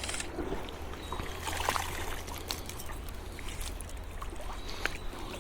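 Flowing river water with scattered small splashes and knocks while a hooked fish is played and brought in.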